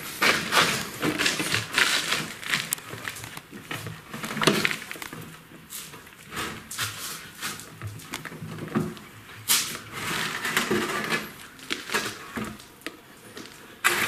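Steel coil suspension spring of a Miele washing machine's tub being worked off its hook on the drum bracket by hand: a run of irregular clicks, clinks and scrapes.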